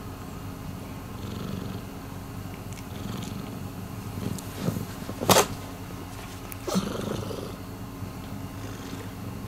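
Domestic cat purring steadily, close up. A sharp knock cuts through the purr a little past halfway, with a softer one about a second and a half later.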